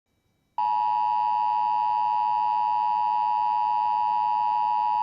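Emergency Alert System attention signal: a loud, steady two-tone electronic alert that starts abruptly about half a second in, the signal that an emergency warning message is about to be read.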